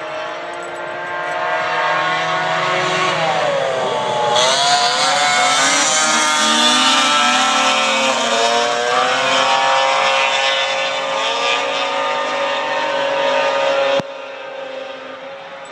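Snowmobile engines racing, several engine notes rising and falling over one another as the sleds rev and change speed. The sound gets louder about four seconds in and drops abruptly about fourteen seconds in, leaving a quieter engine note.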